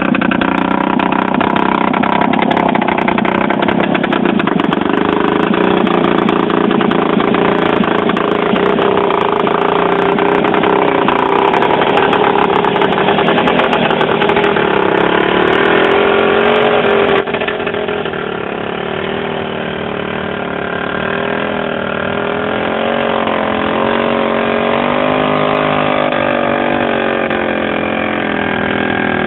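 Small tractor's engine running steadily. About two-thirds of the way through the sound drops suddenly to a quieter level, and from then on the engine note wavers up and down in pitch.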